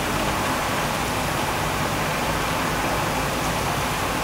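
Heavy rain pouring down steadily, an even hiss that does not let up.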